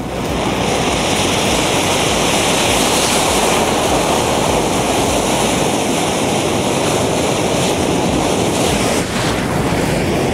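Burning matchstick-powered jet: a loud, steady rushing hiss of flame blasting from the packed drum of matches. It comes up abruptly, holds even, and dips briefly near the end.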